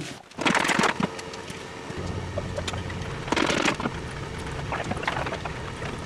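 Hand tools clinking and scraping on metal while working at a stuck roll pin on a hydraulic lift cylinder, in a few short bursts. A steady low rumble sets in about two seconds in.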